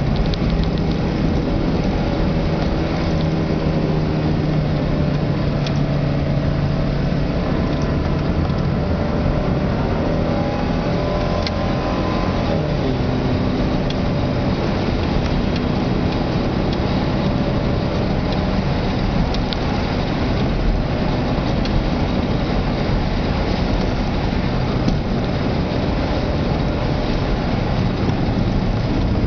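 Subaru Legacy's engine heard from inside the cabin, its pitch rising and falling as the revs change, over steady road and tyre noise.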